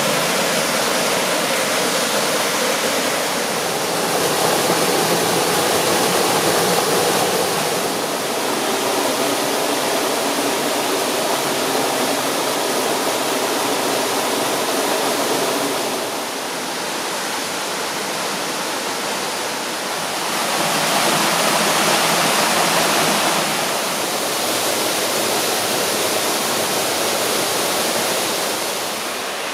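Rushing water of the Cascata Piovere waterfall cascades, a steady dense roar. It eases slightly about halfway through, then swells louder for a few seconds.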